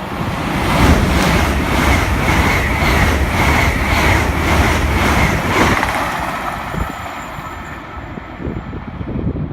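LNER Class 800 Azuma train passing: a loud rush of wheel and air noise with a quick, even beat of wheels over the rail, about three a second, and a steady high whine. It builds about a second in and fades away over the last few seconds.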